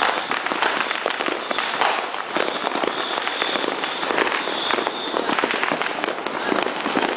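Many fireworks and firecrackers going off together across a neighbourhood: a dense, unbroken crackle of rapid pops and bangs that never lets up.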